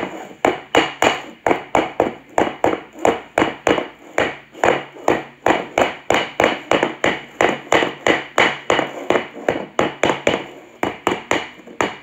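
Rubber mallet tapping a Ninebot ES4 front tire round a 3D-printed jig in a steady run of blows, about three a second. The tapping stretches the wet, soaped tire bead evenly so it can move onto the rim.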